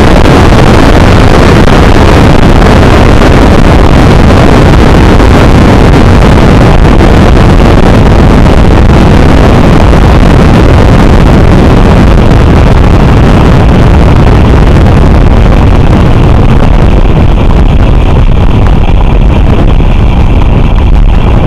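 Café-racer motorcycle running at high speed, its engine largely buried under heavy wind buffeting on the microphone, with the recording overloaded. The rush of wind thins slightly in the last few seconds.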